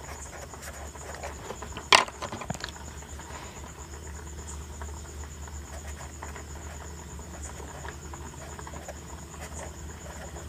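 Felt-tip marker scratching faintly on paper as a word is written, with a sharp click about two seconds in as one marker is swapped for another. A steady low hum and a thin, steady high-pitched whine run underneath.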